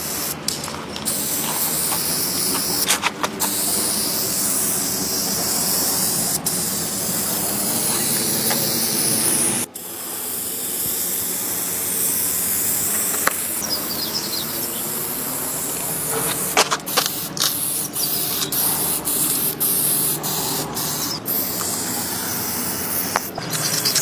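Aerosol spray paint can spraying onto a wall in long, steady hisses. There is a brief break about ten seconds in, and a few short clicks in the second half.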